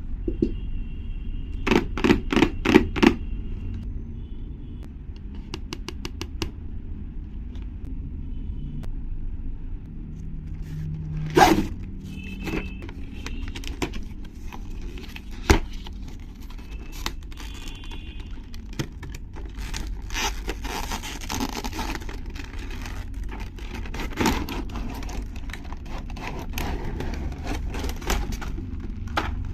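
Blind box packaging being handled and opened: clicks, scraping and crinkling tearing of plastic and card, with a quick run of sharp clicks about two seconds in. A steady low rumble runs underneath.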